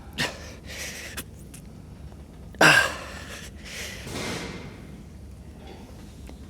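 A man breathing hard through a set, with short forceful exhales. The loudest exhale comes about two and a half seconds in, and a longer, softer one follows over a second later.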